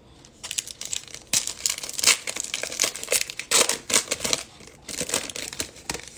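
Foil wrapper of a 2022 Bowman baseball card pack crinkling and tearing as it is ripped open by hand. It makes a quick, irregular run of crackles.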